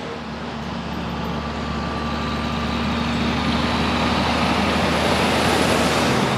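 Semi-trailer truck driving past: a steady diesel engine drone and tyre noise that grow louder as the truck approaches and are loudest near the end as it goes by.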